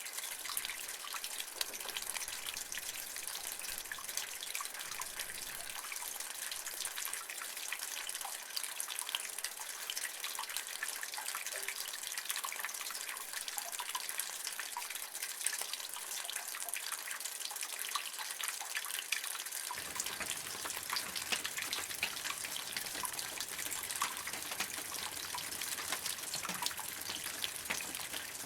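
Steady rainfall: an even hiss of rain with many small, sharp drop ticks throughout.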